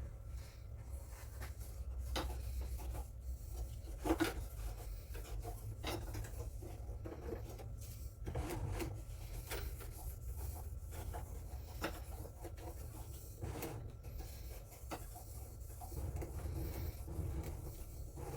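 A shop wipe rubbing back and forth along a dot matrix printer's print-head guide rail and roller, spreading silicone oil, with a few light knocks from handling the parts, over a low steady hum.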